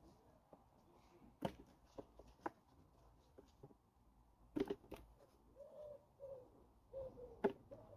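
A few sharp knocks as potatoes are handled and dropped into a plastic pot, the loudest about halfway in and near the end. From a little past halfway a pigeon coos, a low call repeated in short phrases.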